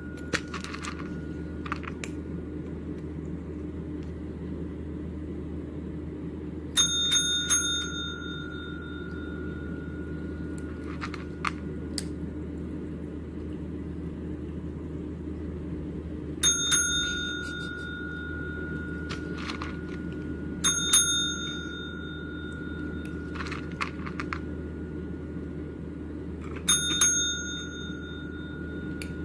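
Pet training call bell (a push-top service bell) rung by a kitten pressing it with its paw: four rings several seconds apart, some struck two or three times in quick succession, each ding fading over a second or two. A few faint taps between the rings and a steady low hum underneath.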